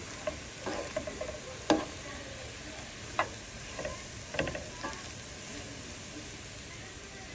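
Diced potatoes and egg sizzling steadily in a nonstick skillet, with a spatula scraping and knocking against the pan now and then, about six times, the sharpest knock about two seconds in.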